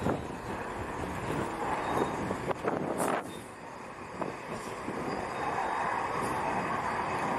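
Jet engine noise from two fighter jets flying in formation, a steady rush that grows a little louder over the last couple of seconds.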